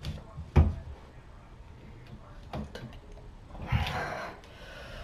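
A doorway pull-up bar knocks sharply once against the door frame under a person's weight, about half a second in. Near the end comes a hard breath with a softer thump as he works through a pull-up.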